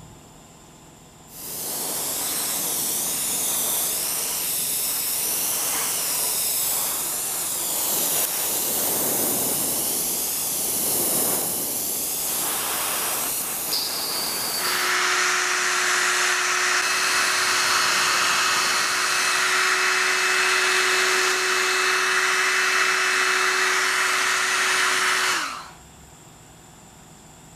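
Airbrush spraying pearl white paint onto a wooden topwater lure body: a loud, steady hiss of air and paint. About halfway through it becomes a more even hiss with a steady hum underneath, and it cuts off suddenly near the end.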